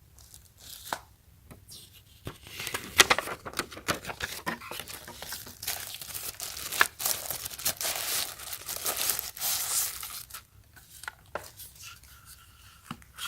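Packaging being torn open and crinkled by hand as the power strip is unwrapped: a dense run of crackling and tearing from about two seconds in until near the end, with a few separate clicks before and after.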